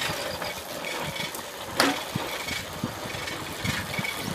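TVS XL100 moped rolling downhill over a stony track, rattling and bumping unevenly, with one sharp knock a little under two seconds in.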